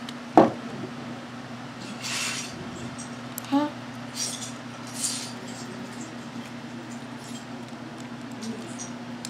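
Plastic Lego bricks being handled and pressed together: one sharp click about half a second in, then a few softer clicks and rustles, over a steady low hum.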